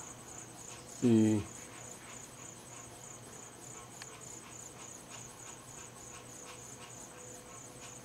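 Insects chirping in a steady, rapid, high-pitched pulsing trill.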